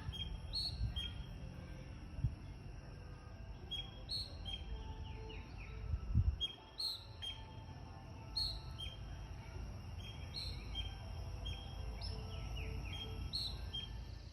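Birds calling over and over, a short call repeated every second or so, over a steady high thin whine and a low rumble.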